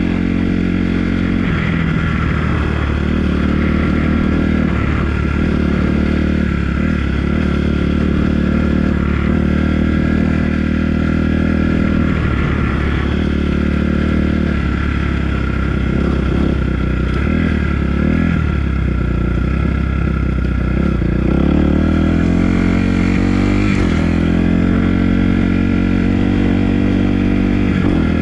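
Dirt bike engine running while being ridden. Its pitch dips and climbs again and again as the throttle is rolled off and on, with a longer rising rev about three-quarters of the way through.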